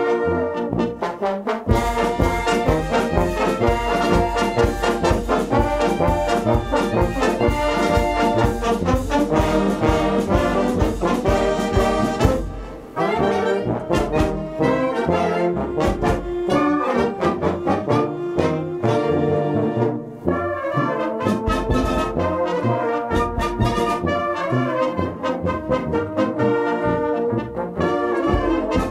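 Wind band playing a show-tune arrangement, with trombones and trumpets to the fore over a steady bass beat. The music eases off briefly about halfway through, then picks up again.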